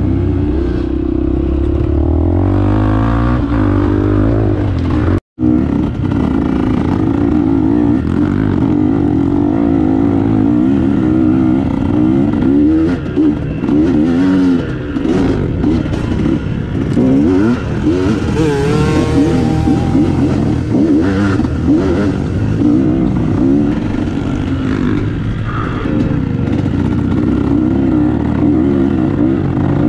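KTM adventure motorcycle engines revving and running under load, their pitch rising and falling with the throttle. The sound cuts out for a moment about five seconds in.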